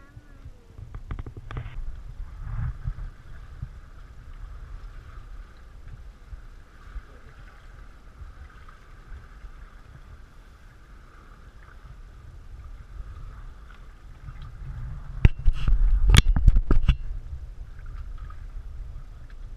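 Paddling an inflatable sea canoe: paddle blades dipping and water sloshing against the hull, with a low rumble on the microphone. A quick run of sharp knocks comes about three-quarters of the way in and is the loudest sound.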